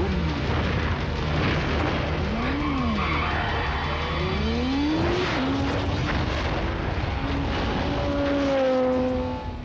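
Motorcycle engine running and revving up and down, settling into a steady high rev that falls slightly near the end.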